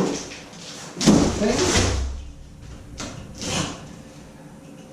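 Handling noise: a sharp knock, then a loud scraping slide with a low rumble about a second in, and two shorter scrapes a little later.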